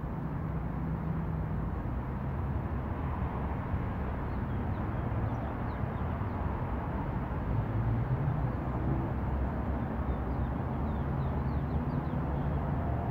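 Steady low outdoor background rumble, with a few faint, short high chirps now and then.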